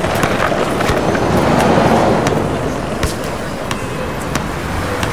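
City street traffic, with a car passing close: a steady rush of tyre and engine noise that swells about two seconds in and then eases, with scattered sharp clicks.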